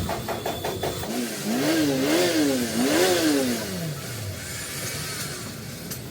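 An engine revved up and down three times in quick succession, then dropping back as the revs fall away.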